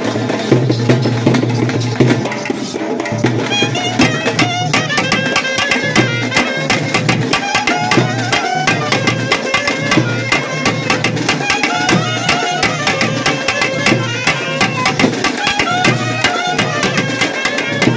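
Three clarinets playing a folk tune together over a fast, steady thappattam frame-drum beat. The drums play alone at first and the clarinets come in about four seconds in.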